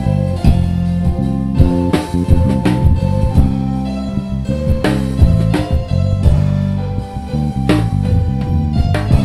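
Live band playing an instrumental passage: an electric bass guitar line moving note to note over drum kit hits, with held keyboard notes above.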